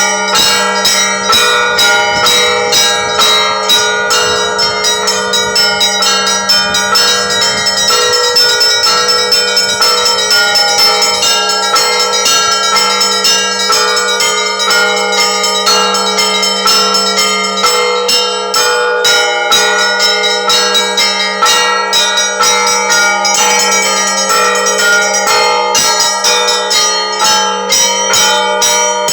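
Russian Orthodox church bells rung in a full festive peal: rapid, overlapping strikes on the smaller high bells, several a second, over the steady hum of a larger low bell.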